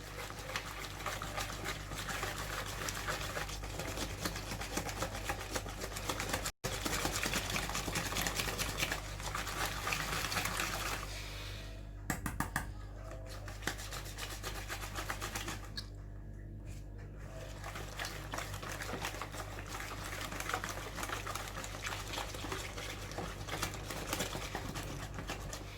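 Cheesecake filling being mixed in a bowl, a fast continuous clicking and scraping that grows lighter about halfway through and nearly stops briefly later on.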